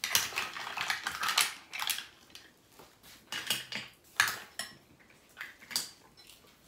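Cutlery clinking on glassware and dishes while eating, as a fork picks through a glass bowl of mussels in their shells. A dense clatter in the first two seconds, then scattered single clicks.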